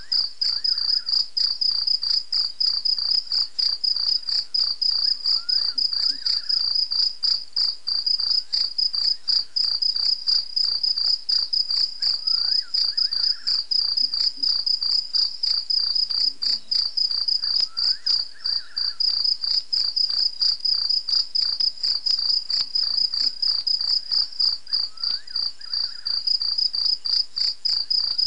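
Night insects trilling in a steady, high, pulsing chorus a few pulses a second, with a fainter second call repeating roughly every five to six seconds.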